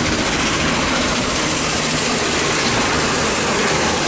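Steam locomotive and its train passing close at speed: a loud, steady rush of noise from the engine and the wheels on the rails.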